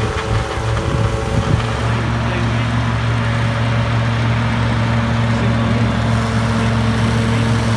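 New Holland 5610 tractor's diesel engine running steadily under load, driving a PTO-powered direct-cut forage harvester as it chops grass for silage.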